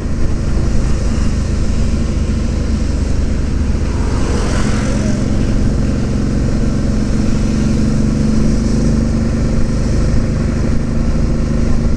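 Suzuki V-Strom DL650 motorcycle's V-twin engine running at riding speed in traffic, with wind rushing over the camera microphone. A brief hiss comes about four seconds in, and near the end the engine note grows stronger and climbs slightly as the bike accelerates.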